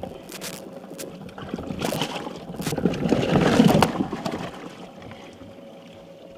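Water splashing and sloshing in a boat's live well as a fish is grabbed out of it by hand, loudest about three to four seconds in. Underneath, a faint steady hum from the live well discharge pump running.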